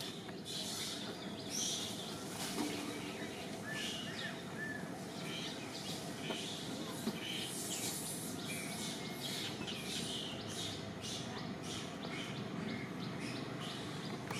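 Many short, high chirps from birds repeating over steady outdoor background noise with a faint constant hum.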